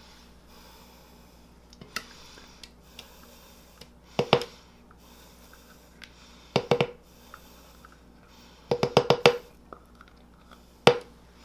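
Kitchen clatter: sharp knocks of a utensil against kitchenware as sauce ingredients are added, coming singly and in short clusters, with a quick run of about six taps a little after the middle.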